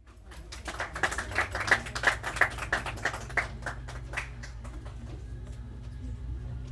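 A few people clapping, irregular claps that thin out and stop about four and a half seconds in, over a low steady hum.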